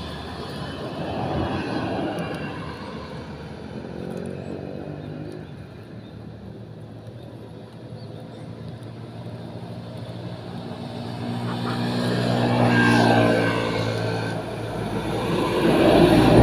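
Motor vehicles passing by: engine and tyre noise swelling and fading several times, with the loudest passes about thirteen seconds in and at the very end.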